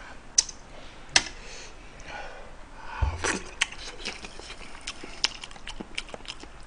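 Close-miked chewing of a piece of braised chicken, with many sharp wet mouth clicks and lip smacks and a low bump about three seconds in.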